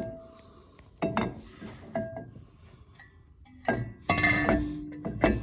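Metal-on-metal clinks and knocks from tools and brake parts being handled: about six sharp hits, several with a short ringing tone after them, and a brief cluster of clatter about four seconds in.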